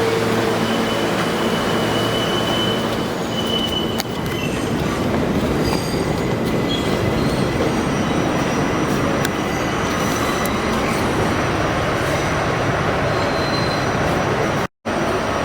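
R68A subway car running along the line: steady rail rumble, with thin high wheel squeal over roughly the first four seconds. The sound cuts out for a moment near the end.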